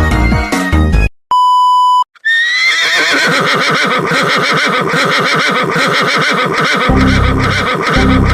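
The music cuts off and a steady censor beep sounds for under a second. Then a long, warbling horse whinny sound effect begins with a rising glide and runs on for several seconds. A bass beat comes back under it about seven seconds in.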